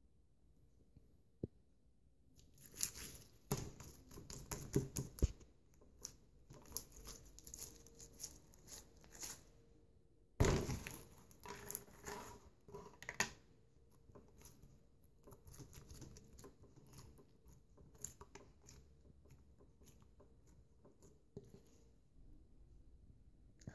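Slime being stretched and squished by hand, giving irregular sticky crackles and small pops. It is busiest from a few seconds in until about halfway, with one louder burst about ten seconds in, and only faint crackles after that.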